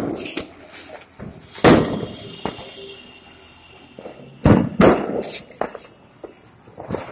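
Firecrackers going off with sharp bangs: one about a second and a half in, then three in quick succession a few seconds later, each with a short echoing tail. Between them, a ground spinner (chakri) spinning on the floor throws sparks with a steady hiss and a faint thin whistle.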